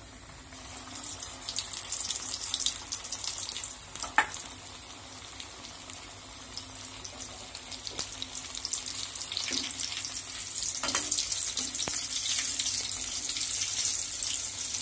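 Batter-coated chicken pieces deep-frying in hot oil: a steady, dense sizzling crackle that eases in the middle and grows louder again in the second half. A single sharp knock sounds about four seconds in.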